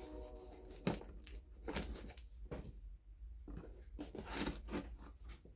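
Cardboard box being torn open and its packaging handled: irregular rustling and crinkling, with a sharp snap about a second in.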